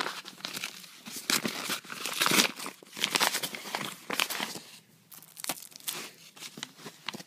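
Brown paper parcel wrapping being torn open and crumpled by hand: a run of ripping and rustling, loudest about two seconds in and thinning out after about five seconds.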